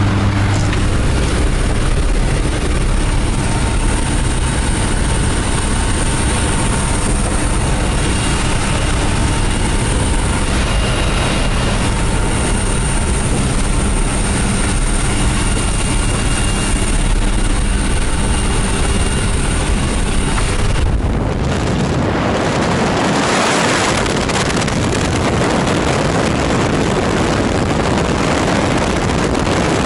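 Twin-engine propeller jump plane droning steadily inside the cabin at altitude. About 21 seconds in, a loud rush of wind and slipstream takes over as the jump door stands open.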